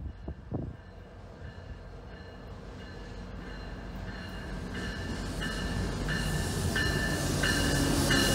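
GO Transit bilevel commuter train approaching cab car first, its rumble growing steadily louder. From about halfway in, a bell rings in even strokes about every two-thirds of a second.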